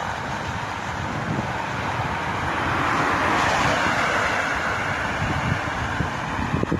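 Outdoor rush of road traffic mixed with wind on the microphone. It swells about three seconds in, as if a vehicle is passing.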